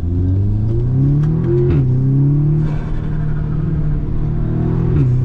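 Audi S3's turbocharged four-cylinder engine accelerating hard, its pitch climbing and then dropping sharply at a gear change about 1.7 s in and again near the end. A turbo hiss or flutter follows the shifts, because the diverter valve has been removed.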